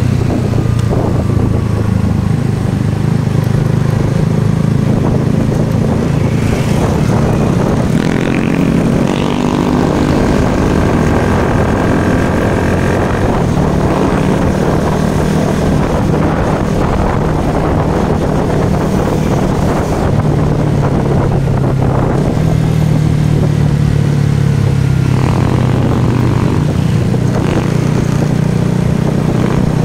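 Motorcycle engine running on the move, its pitch rising and falling with the throttle.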